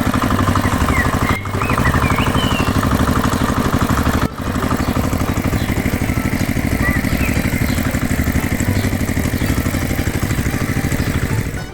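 An engine running steadily at idle with a fast, even firing rhythm, briefly dropping out twice, about a second and a half and four seconds in.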